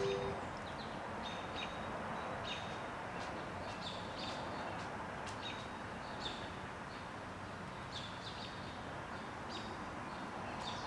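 A small bird chirping repeatedly, short high chirps every second or so, over a steady outdoor hiss.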